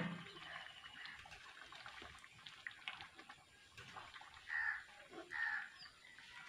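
Faint simmering and spluttering of chicken curry in an iron wok over a wood-fired earthen stove. Two short animal calls come about four and a half and five and a half seconds in.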